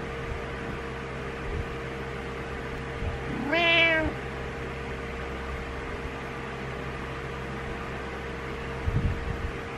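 Orange-and-white domestic cat giving a single meow that rises in pitch and then levels off, a frustrated call for its owner to get up. A steady hum runs underneath, and a few soft thumps come near the end.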